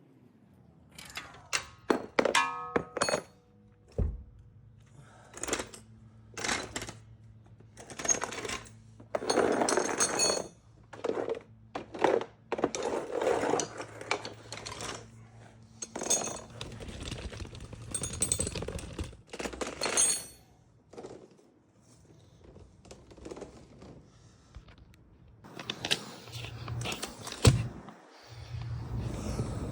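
Metal hand tools and suspension parts knocking and clinking in irregular strikes, with a short ringing metal clang about two seconds in. A steady low hum comes in near the end.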